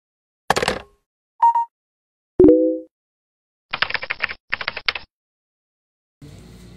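Intro sound effects: the clack and loud clunk of a VHS cassette pushed into a VCR, with a short beep between them, then two short bursts of rapid keyboard typing clicks as a title is typed out.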